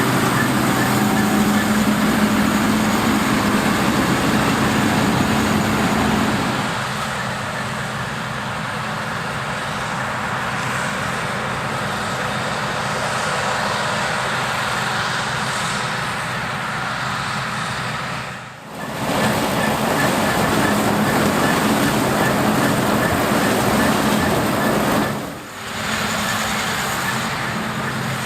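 New Holland TX30 combine harvester running while harvesting corn: a dense, steady rushing noise of the threshing machinery over a low diesel engine hum. The sound drops out sharply twice, about two-thirds of the way through and again near the end.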